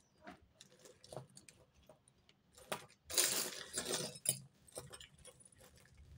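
Small metal costume jewellery pieces clinking and jangling as hands rummage through a pile of them: scattered light clicks, with a louder stretch of jangling from about three seconds in that lasts just over a second.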